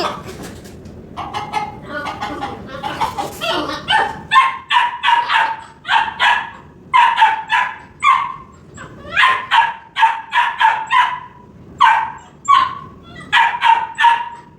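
Labrador puppy barking over and over, short high yapping barks in quick runs of several at a time.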